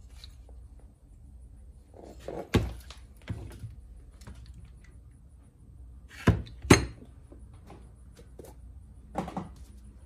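Starter motor parts knocking and clacking as they are handled and set down during reassembly: a few separate knocks, with the two loudest close together about six seconds in.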